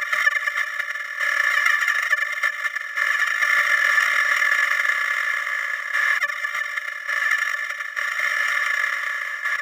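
A 'wah wah' sound effect sped up so far that its notes have merged into a dense, steady high-pitched buzz with no low end, its texture shifting every second or two.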